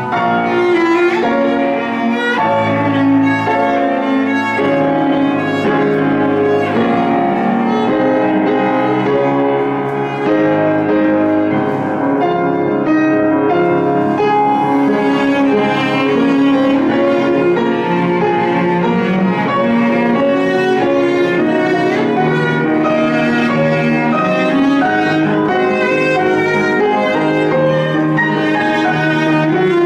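Cello and Kawai grand piano playing a classical chamber piece together: a bowed cello melody over continuous piano, without a break.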